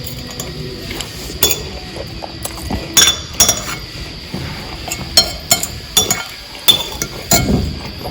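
Cutlery clinking against a plate while eating: a string of sharp, irregular clinks, the loudest about three seconds in, with a cluster between five and seven seconds.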